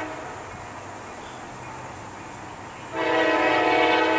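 Diesel freight locomotive's air horn sounding as the train approaches. The end of a short blast comes right at the start, then a long, loud blast begins about three seconds in, a steady chord of several notes.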